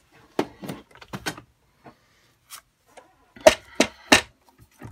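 Plastic paper trimmer and photo prints being handled on a craft table: a few light clicks in the first second and a half, then three sharp knocks in quick succession about three and a half seconds in as the trimmer is set down and positioned.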